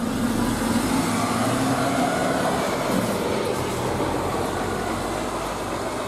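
Truck-mounted concrete pump's diesel engine running as the truck moves slowly through a turn, a steady mix of engine and road noise.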